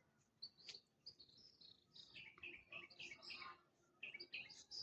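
Faint birdsong: many short, quick high chirps, most of them falling in pitch, overlapping one another.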